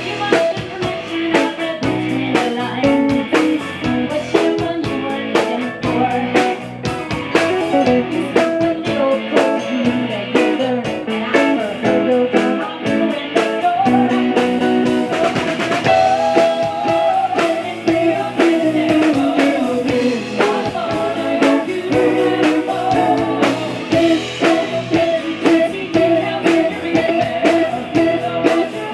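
Blues-rock music: guitar over a drum kit with a steady beat, with some singing.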